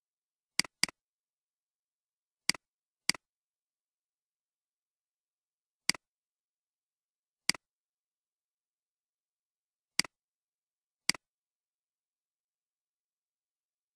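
Eight single computer mouse clicks at irregular intervals, a quick pair about half a second in, then others one to three seconds apart, with nothing else heard between them.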